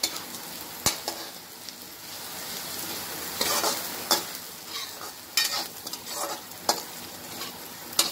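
Coarsely ground urad dal frying in hot oil in a kadhai, with a steady low sizzle while a metal ladle scrapes and stirs it around the pan in irregular strokes about once a second. This is the bhuna stage, with the dal being roasted in the oil.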